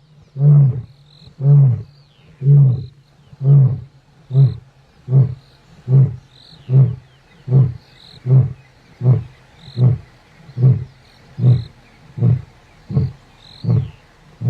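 A lion roaring: a long run of deep, grunting calls, about one a second, each shorter than the last as the roaring bout winds down.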